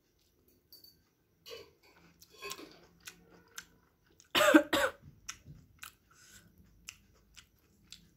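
A person coughs twice in quick succession about halfway through, the loudest sound here, with quiet chewing and small mouth clicks while eating momos before and after.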